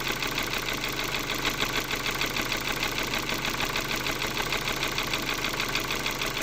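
Ford Focus II 1.6 petrol four-cylinder (115 hp) engine idling with a fast, even knock, the engine knock the owner is showing.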